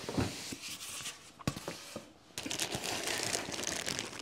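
A few knocks and scrapes as a foam box is opened, then clear plastic wrapping crinkling steadily from about two and a half seconds in as a wrapped model train is lifted out of the box.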